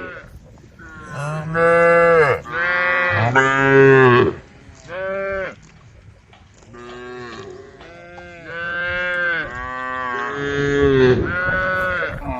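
Several cows mooing one after another, long calls at different pitches, often overlapping, with a brief lull near the middle.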